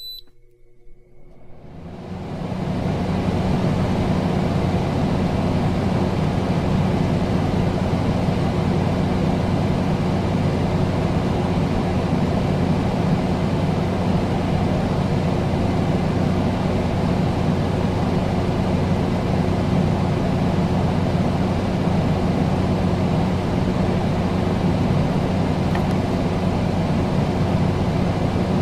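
A steady, loud mechanical drone with a low hum underneath, fading in over the first two seconds and then holding level without change.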